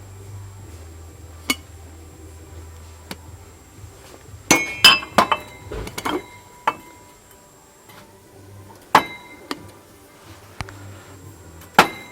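China and glassware clinking as pieces are handled and set down: sharp ringing clinks, a quick cluster of them about four to five seconds in and single ones scattered before and after.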